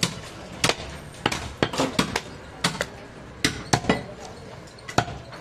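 Heavy butcher's knife chopping goat meat on a wooden log block: about a dozen sharp, irregular strikes of the blade through the meat into the wood.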